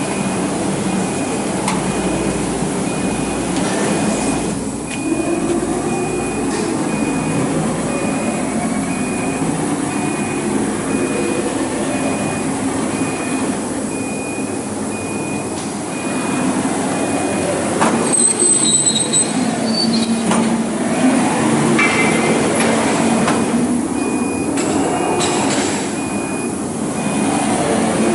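5-axis CNC router running through axis moves without cutting: the drive motors whine, sliding up and down in pitch as the gantry and spindle head traverse and swivel. A short high beep repeats about every two-thirds of a second for most of the first two-thirds.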